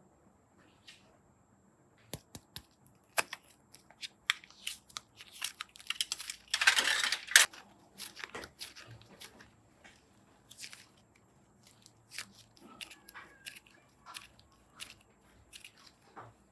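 Slime being worked by hand, making sticky clicks and crackling pops, with a denser crackling burst about seven seconds in.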